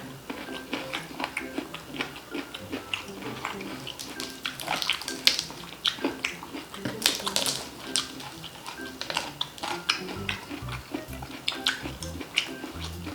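Crunching and chewing of crispy deep-fried chicharon bulaklak (pork mesentery), with many sharp irregular crackles, over background music.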